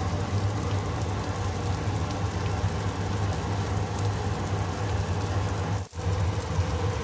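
Soup at a rolling boil in a pot, bubbling and spattering steadily over a low steady hum. The sound drops out for an instant near the end, then the boiling goes on.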